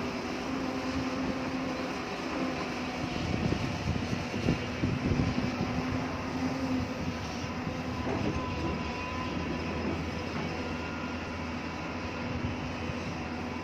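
Hyundai excavator's diesel engine running steadily under load, with a run of irregular knocks and clatter a few seconds in, as of the bucket working rock.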